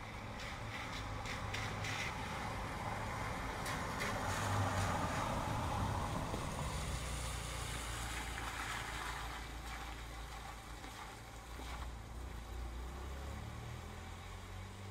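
Steady rain with a car passing on the wet road: the hiss of its tyres swells about four seconds in and fades away by about ten seconds. Scattered drips tick in the first few seconds.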